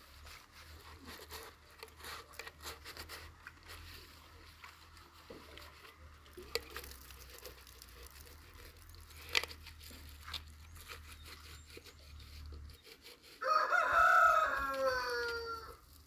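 A rooster crows once, loud and about two and a half seconds long, near the end. Before it there are scattered light knocks and clicks over a low steady hum that stops just before the crow.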